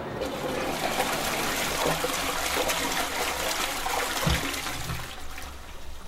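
A toilet flushing: a rush of water that starts suddenly and dies away near the end, with a low thump a little after four seconds in.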